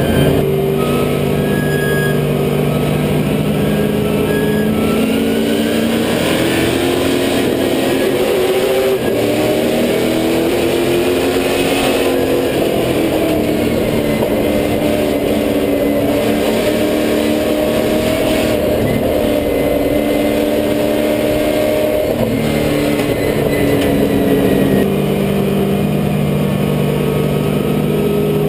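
Super Late Model race car's V8 engine heard from inside the cockpit at racing speed, its note climbing for several seconds, falling back, then rising and dropping again as the car speeds up and lifts around the track, over steady wind and road noise.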